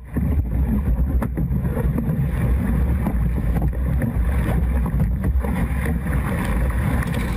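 Heavy wind rumble on the microphone of a camera mounted aboard a rowed surf boat, mixed with rushing water as a breaking wave crashes over the boat, with a few brief knocks.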